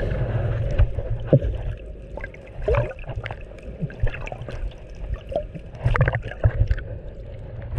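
Seawater sloshing and gurgling around an action camera bobbing at the surface, dipping under and coming back up, with irregular small splashes and knocks of water against the housing over a low, muffled underwater rumble.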